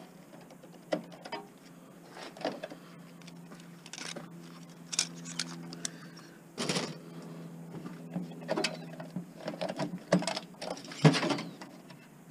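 Scattered plastic and metal clicks and knocks of a desktop computer being taken apart by hand for scrap. A steady low motor hum starts about two seconds in and stops near the end.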